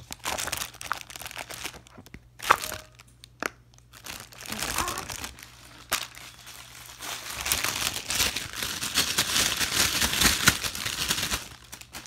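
Plastic wrapper crinkling as it is handled and pulled open by hand, with a few sharp clicks; the crinkling becomes denser and steadier over the last four seconds or so.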